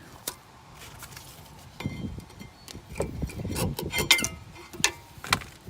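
Brake pads and their metal clips clinking and clicking against the caliper bracket as they are handled and pulled out: a run of sharp metallic taps with light ringing, busiest in the middle and second half.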